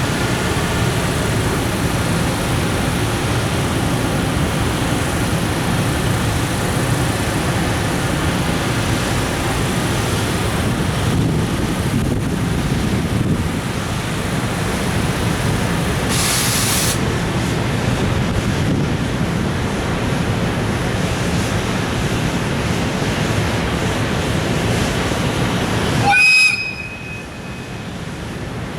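Container wagons of a freight train rolling past, a steady rumble of wheels on the rails with a brief high hiss about halfway through. The rumble cuts off suddenly near the end as the last wagon goes by, leaving a quieter rushing of wind.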